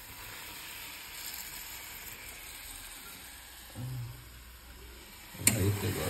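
Yippee noodles cooking in a kadai on a gas stove, with a steady sizzling hiss as a metal spatula stirs them. A sharp knock comes near the end.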